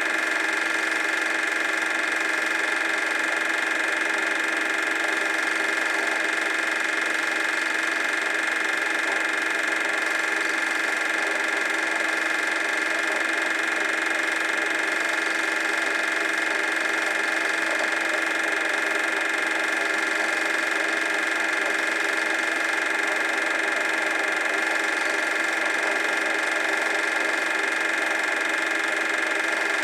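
Super 8 film projector running: a steady mechanical whirr with a constant high-pitched hum, unchanging throughout.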